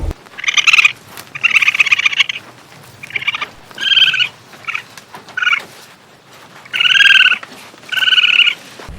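An animal calling in a series of about eight short, pitched calls, each under a second long, with short pauses between them.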